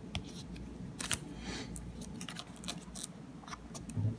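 Pages of a coin binder being handled and turned: scattered small clicks and rustles with a brief swish of the page about a second and a half in, ending in a sharp tap.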